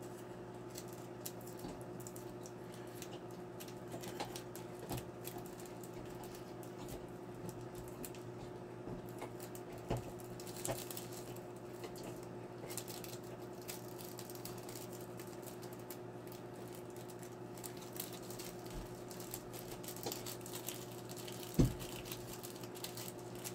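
Faint rustling and light clicks of small nail-art items and plastic packaging being worked back into their pack by hand, over a steady hum. One louder knock comes near the end.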